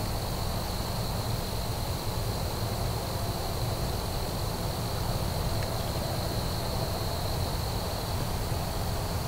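Steady woodland ambience: a continuous high insect trill, typical of crickets, over a low, even hiss.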